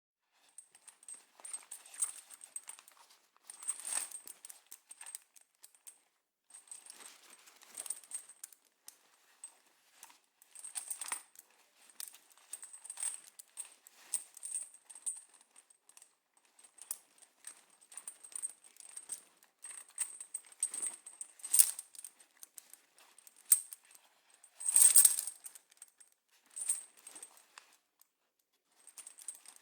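Metal chain jangling and clinking as it is handled, its links rattling against each other in irregular bursts, with a louder jangle near the end.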